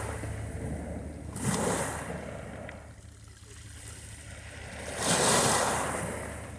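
Sea waves washing onto a beach: two surges, about a second and a half in and again near the end, each rising quickly and then draining away.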